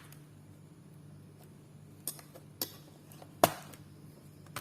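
Plastic snap clips of a Dell notebook's bottom casing clicking free as the case is pried open: two light clicks about two seconds in and a louder, sharper snap about three and a half seconds in.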